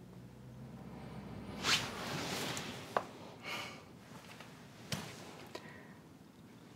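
Quiet handling sounds as a cordless phone handset is picked up and held to the ear: a soft rustle about two seconds in and a few light clicks and taps.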